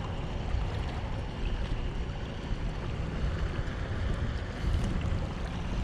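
Wind buffeting the microphone with a steady wash of water noise, uneven and strongest in the low rumble. A faint steady hum comes in near the end.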